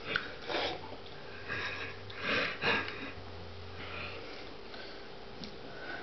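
Several short, breathy sniffs and breaths through the nose, scattered over the first four seconds, like stifled giggling.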